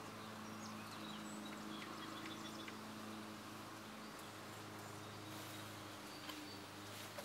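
Faint outdoor background: a steady low hum with scattered faint bird chirps.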